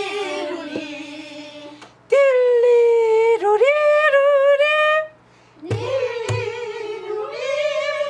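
A woman singing Korean folk-song vocables ('liruri') in three long, wavering held phrases with short breaths between them. About six seconds in, two low strokes on a buk barrel drum sound half a second apart.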